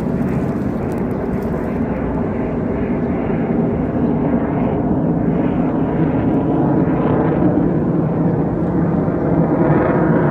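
Fighter jet flying overhead: a loud, steady jet-engine rumble that grows a little louder toward the end.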